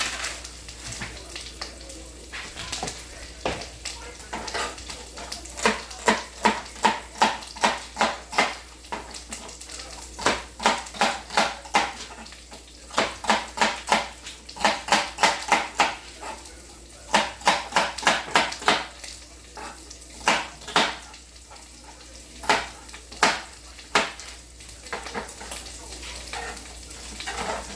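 A knife chopping celery on a cutting board: runs of sharp, quick chops, about two or three a second, in several bursts with short pauses, then a few scattered strokes near the end. A skillet sizzles faintly underneath.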